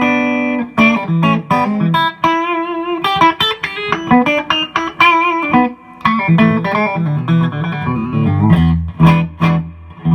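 1959 Gibson Les Paul Special electric guitar with both P90 pickups on, played through a PRS Sonzera 50 amp on clean: a busy run of picked single notes and chords, some notes held with vibrato.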